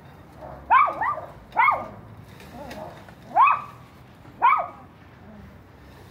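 A dog barking: five short barks in an uneven series, two close together near the start, then spaced about a second apart.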